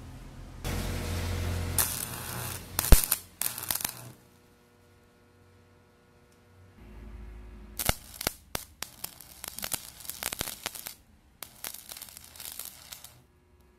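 Stick (shielded metal arc) welding: the electrode arc crackles and hisses irregularly with sharp cracks, in two runs broken by a few seconds of silence, with a low electrical hum before the second run.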